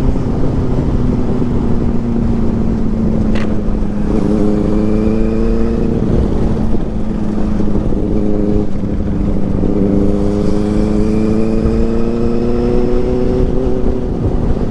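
Motorcycle engine running at a steady cruise under a constant rush of wind, its note dipping briefly twice in the middle and climbing slightly after. A single sharp click about three seconds in.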